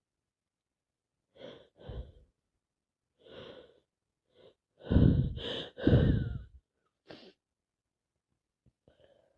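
A person with a head cold taking several short catching breaths, then sneezing loudly twice about a second apart, about five seconds in, followed by one more short breath.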